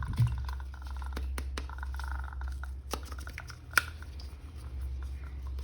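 Small handling noises: scattered light clicks and taps as a plastic action figure is handled, with one sharper click nearly four seconds in, over a steady low hum.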